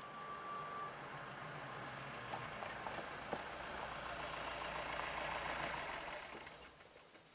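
A motor vehicle engine running, with a steady low hum that grows slowly louder and then fades about six seconds in.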